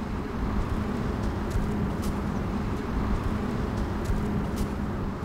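Steady outdoor background: a low rumble with a steady mechanical hum, as of a motor or vehicle running, and a few faint high ticks.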